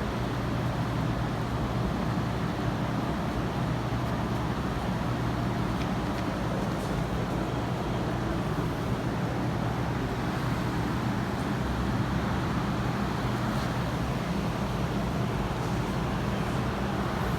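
Steady low machine hum with a constant rushing background noise, unchanging throughout.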